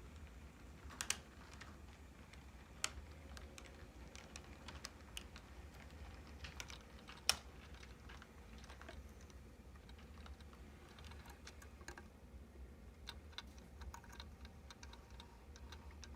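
Irregular light clicks and ticks from an HO scale model train rolling and switching cars over the track, one sharper click about seven seconds in, over a faint low steady hum.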